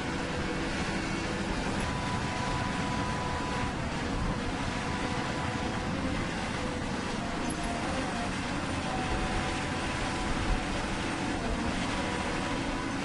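Scale RC hydraulic excavator (CAT 336 model) running its hydraulic pump with a steady whine, a thin tone coming and going as the ripper arm is worked into rocky soil. A single short knock about ten and a half seconds in.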